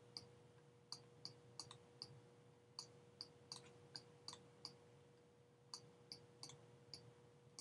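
Faint, light clicking of a pen or input device while an equation is handwritten on a computer screen, about two irregular clicks a second with a short pause around five seconds in. A faint steady hum sits underneath.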